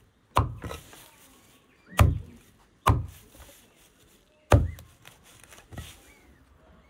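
Cleaver chopping a pile of fresh herbs on a wooden stump block: about five sharp, unevenly spaced chops, the last one lighter.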